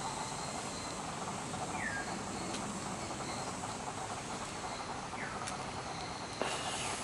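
Steady outdoor hiss with two short downward-sliding bird chirps, about 2 and 5 seconds in, and a few faint clicks; the hiss gets suddenly louder near the end.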